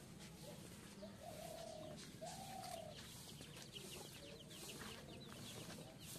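Birds calling: two drawn-out low notes about a second in, then a quick run of short, high, falling chirps.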